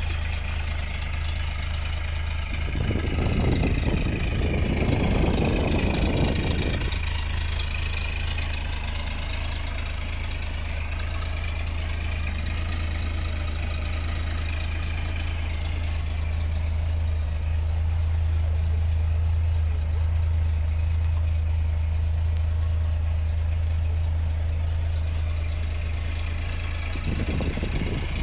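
Toyota 2F 4.2-litre inline-six engine idling steadily. A louder rush of noise rises over it for a few seconds about three seconds in, and again near the end.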